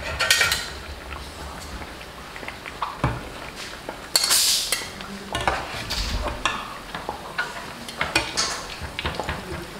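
Metal spoons clinking and scraping against a steel karai as roht are turned and lifted out of hot ghee, with a short hiss about four seconds in.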